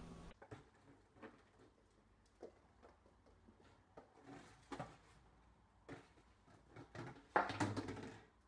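An empty plastic bottle knocked and rolled about on a wooden floor by a playing kitten: scattered light hollow taps and scuffs, with a louder burst lasting about a second near the end.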